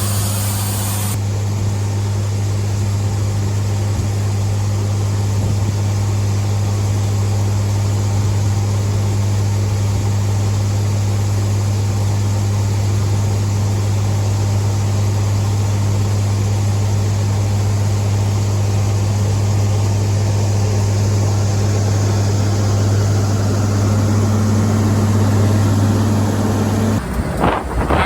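Combine harvester running steadily, a loud, even engine drone with a strong low hum that cuts off suddenly near the end.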